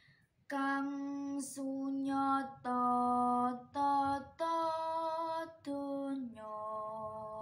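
A girl singing macapat, Javanese sung verse, solo and unaccompanied. After a short pause she sings a phrase of held notes that step between pitches with brief breaks between syllables, and near the end she settles into one long held note.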